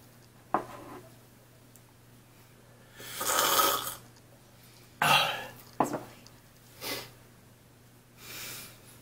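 A person slurping a drink from a mug, one loud slurp of about a second, followed by a few shorter breathy mouth noises and a sharp knock.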